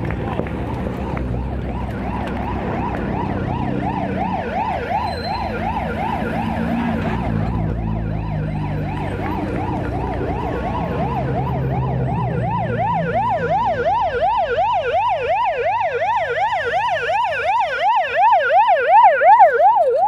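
A siren wailing in quick up-and-down sweeps, two or three a second, without a break, growing louder in the second half. In the first half, the engines of cars driving past run low beneath it.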